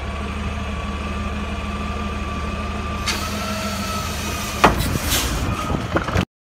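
McNeilus front-loading garbage truck running at idle with a steady high whine as its arm lifts a cart, the whine stepping up in pitch about three seconds in. About four and a half seconds in, a sudden loud burst as the hopper load ignites, followed by further bursts, then the sound cuts off.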